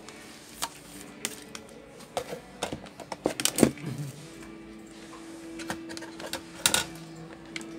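Clicks, knocks and rattles of a laptop charger's cable and barrel plug being handled and plugged into a netbook, busiest about halfway through, with a sharp click near the end. A faint steady hum sets in about halfway.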